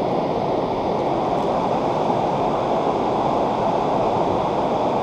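Steady rush of fast-flowing floodwater, an even noise without pitch.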